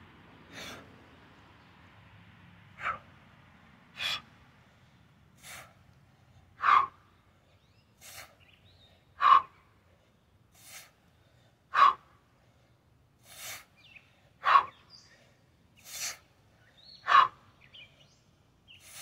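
A man's forceful breathing while pressing a pair of kettlebells bottoms-up: a short, loud exhale about every two and a half seconds, each preceded by a fainter, hissier inhale, keeping time with the reps.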